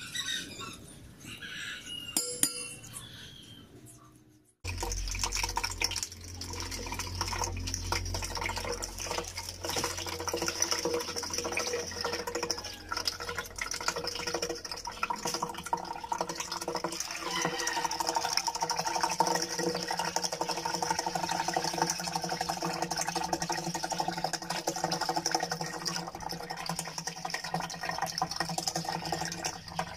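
Canned milk pouring in a thin stream into a plastic blender jar of mango pieces, a steady splashing over a low hum that starts suddenly about four and a half seconds in. Before that, a few faint clinks of a spoon against a glass bowl as diced mango is scooped.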